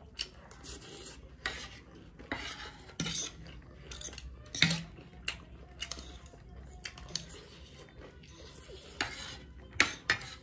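Forks and spoons clinking and scraping on plates as noodles are twirled and scooped up: a run of irregular sharp clinks, the loudest about halfway through and just before the end.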